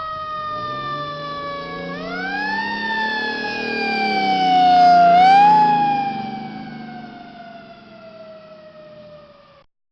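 Fire truck siren wailing in long slow sweeps: it rises twice and falls gradually in between. It grows louder to a peak about five seconds in, then fades away and stops shortly before the end.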